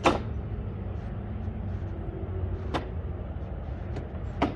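Plastic trim clips on a Jeep Wrangler's front end being pried and snapped loose: three sharp clicks, the loudest right at the start, then two more a couple of seconds apart, over a steady low rumble.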